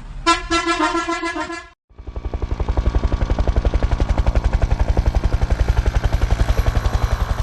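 A bus horn sounds for about a second and a half at one steady pitch. After a brief break, a helicopter's rotor fades in, chopping rapidly and evenly, then holds steady.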